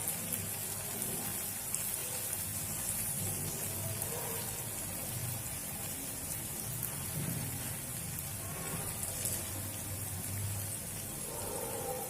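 Okra masala frying in a pan: a steady sizzling hiss with fine crackles.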